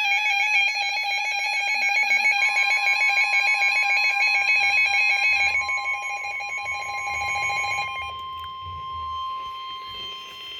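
Weather-alert radio alarm: a loud warbling electronic alarm tone, joined about two seconds in by the steady NOAA Weather Radio 1050 Hz warning alarm tone. The warbling dies away about halfway through, leaving the steady tone, which signals an incoming warning.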